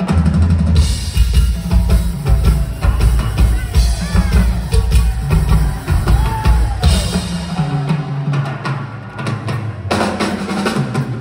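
Live rock band playing a loud instrumental: driving drum kit and bass with synthesizer sweeps gliding up and down in the middle. Near the end the heavy bass drops away briefly before the full band comes back in.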